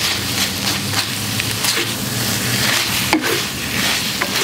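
Udon noodles and vegetables sizzling in sauce in a hot stainless steel pan while a wooden spatula stirs and tosses them: a steady sizzle with irregular scrapes of the spatula against the pan and a sharp knock about three seconds in.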